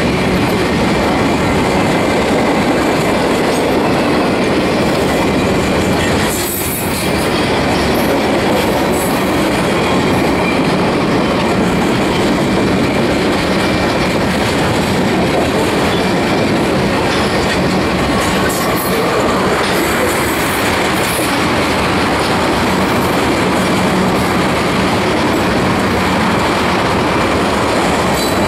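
Loaded freight cars of a Union Pacific manifest train rolling past close by: steady rumble and clatter of steel wheels over the rail, with a faint high wheel squeal.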